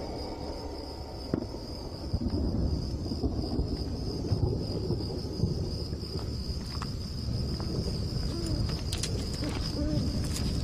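Low, steady rumbling ambience with a thin, steady high-pitched whine over it and a few faint clicks.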